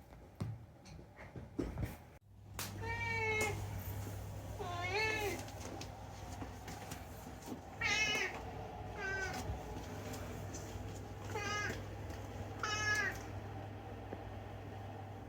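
Domestic cat meowing six times: short calls whose pitch bends up and down, the first two about a second apart and then two pairs later on, over a low steady hum. A few light clicks come before the first meow.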